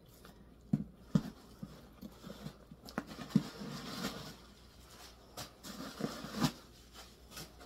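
Dooney & Bourke leather tote being lifted and turned by hand: soft rustling of the leather with scattered short clicks and knocks.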